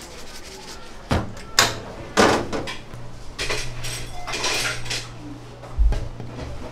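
Dishes and utensils clinking and clattering in a few separate sharp knocks. A low steady hum starts about three seconds in.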